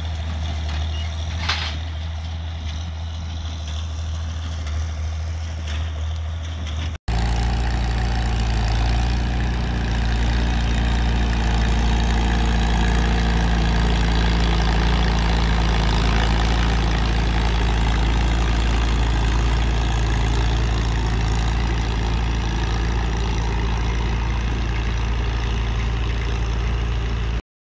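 Farm tractor engine running steadily under load while driving a hay baler. About seven seconds in, it cuts to a louder, closer recording of an International Harvester 350 tractor pulling a Hesston 530 round baler, which runs steadily and then stops abruptly near the end.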